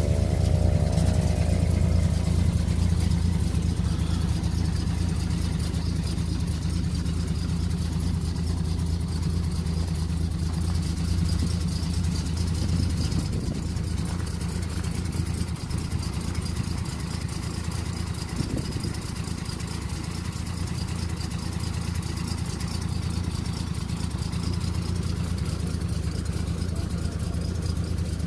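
The 1936 Diamond T 221D fire truck's engine idling steadily, with a falling whine that fades out in the first two or three seconds.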